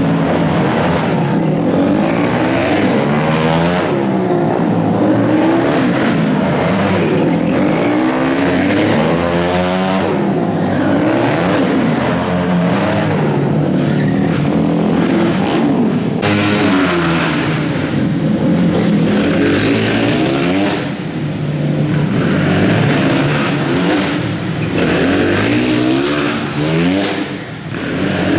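A pack of small motorcycles racing around a tight indoor track, several engines running at once and overlapping, each rising and falling in pitch as riders accelerate out of the turns and back off into them.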